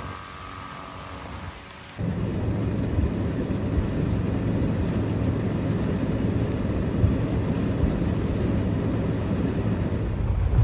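Car on the move in the rain: a steady low rumble with rain hiss that starts abruptly about two seconds in, after a quieter stretch.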